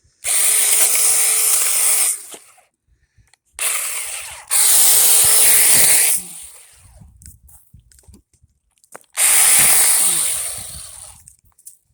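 Mini chainsaw running in three bursts of about two seconds each as it cuts through small tree branches, silent between cuts; the last burst fades out.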